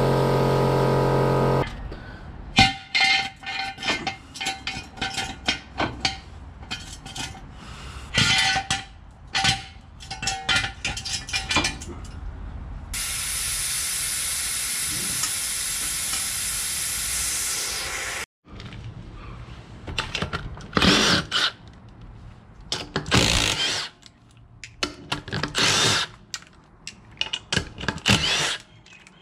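A red cordless impact wrench undoes the wheel nuts on a steel wheel in several short, loud bursts over the last nine seconds or so. Before that, air hisses steadily for about five seconds from the pneumatic bag jack under the rear axle, after a stretch of scattered clicks and clanks. A guitar music track cuts off about two seconds in.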